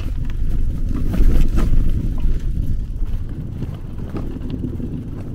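Wind buffeting the microphone while riding a bicycle: a loud, uneven low rumble.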